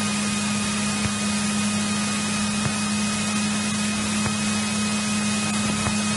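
1964 Cessna 172E's Continental O-300 six-cylinder engine running at a steady speed: an even drone with a strong constant hum and a wash of hiss.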